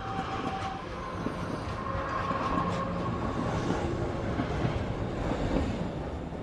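A moving train heard from inside a passenger carriage: a steady rumble of running noise with a few faint held tones.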